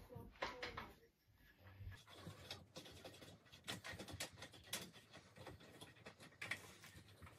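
Faint small clicks and rubbing of a screw being turned in by hand at a bed frame's headboard joint, with light knocks of the frame being handled.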